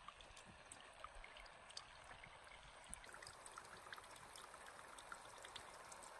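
Faint, steady hiss of water spraying from a garden hose and falling back onto a carved cedar dugout canoe hull, with many small droplet ticks.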